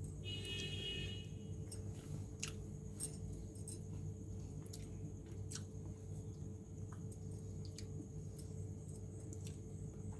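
Faint sounds of someone eating: chewing and scattered soft clicks and ticks, over a steady low hum.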